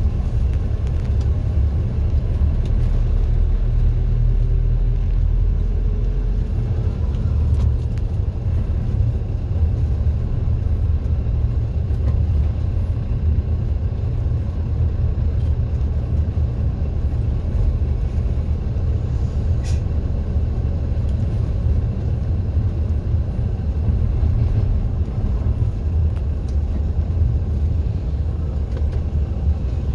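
Steady low rumble of a moving road vehicle, engine and road noise, with a faint rising engine tone a few seconds in.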